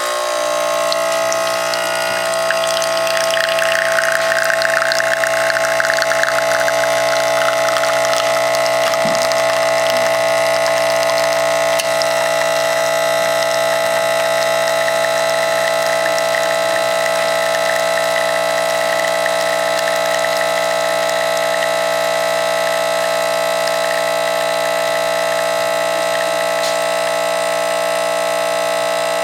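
Espresso machine pump running steadily, a constant hum of several unchanging tones, as it pushes hot water through an ESE pod to brew a short espresso.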